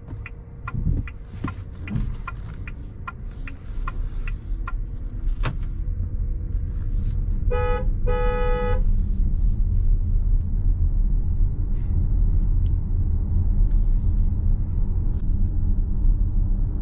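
Low, steady road rumble in the cabin of a moving car, growing louder over the first few seconds. A car horn toots twice about eight seconds in, a short toot then a longer one. Light scattered clicks sound in the first few seconds.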